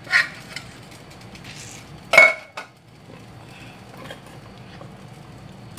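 A steel spoon knocking and clinking against a steel pot while stirring a thick milk and sweet-potato mixture. One loud, ringing clink comes about two seconds in, with a softer knock just after it.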